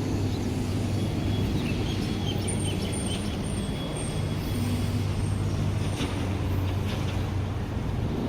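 Steady low engine rumble of road traffic, such as a truck or bus running nearby. A faint high whine sounds over it for the first few seconds.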